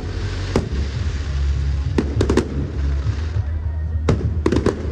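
Aerial fireworks exploding in a display: a single sharp bang about half a second in, a quick cluster of bangs around two seconds in, and another cluster of rapid reports near the end.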